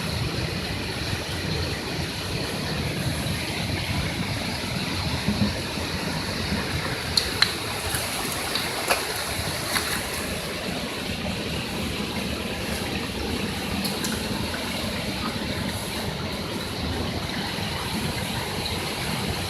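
Steady rushing of a waterfall pouring into its plunge pool, with a few sharp clicks between about five and ten seconds in.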